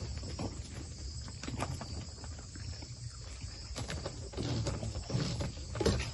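Goats moving about, with irregular knocks and shuffling from their hooves, and a few louder thuds near the end. A steady high insect drone sits underneath.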